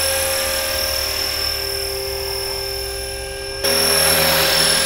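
Blade 330S electric RC helicopter in flight: a steady whine from its motor and spinning rotors over a rushing hiss. A little past three and a half seconds in, it turns suddenly louder, with more rotor rush.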